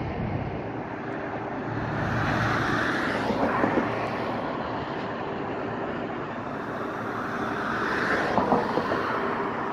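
Road traffic: a steady hum of passing cars, with two vehicles swelling past, one about two seconds in and another near the end.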